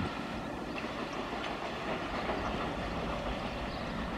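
Wheels of a double-stack container freight train running along the track as its tail end moves away, a steady rumbling noise.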